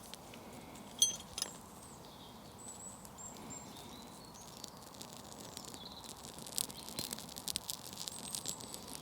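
Faint crackling of a small, freshly lit campfire, the crackles growing thicker about six seconds in, with a sharp click about a second in and a few short, thin, high chirps.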